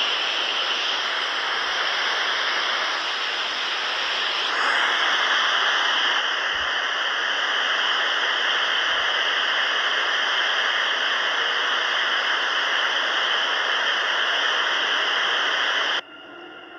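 Heavy rain falling in a steady hiss that gets a little louder about four seconds in, then cuts off abruptly near the end.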